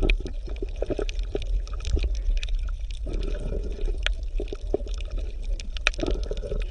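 Water bubbling and gurgling, with many small irregular pops over a steady low rumble.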